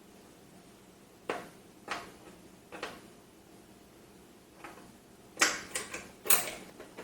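Short, sharp metal clicks and clinks as screws are undone on a PC case's steel power supply cover: four single clicks a second or so apart, then a quicker, louder cluster near the end.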